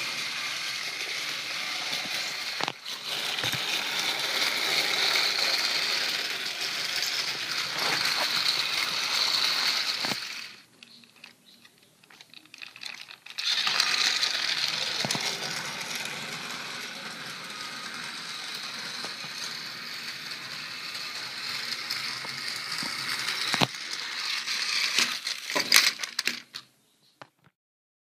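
Battery-powered TrackMaster toy engine's electric motor whirring steadily as it pulls its trucks along plastic track, with occasional sharp clicks. The whirring stops for about three seconds near the middle, starts again, and cuts off just before the end.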